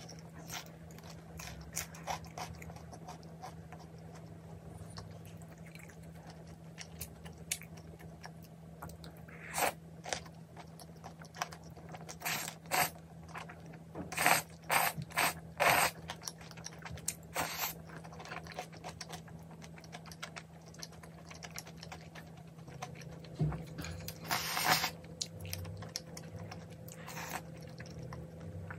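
Close-miked eating: a person chewing, with a run of short wet slurps about halfway through as black-bean-sauce noodles (jjajangmyeon) are sucked in, and another burst of slurping later on. A steady low hum sits underneath.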